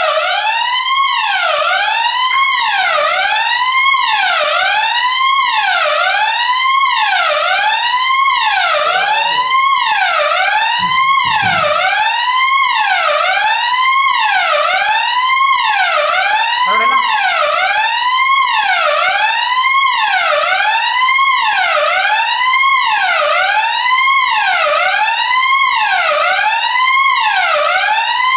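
Electronic fire alarm sounder going off continuously: a loud siren tone sweeping up and down about once a second.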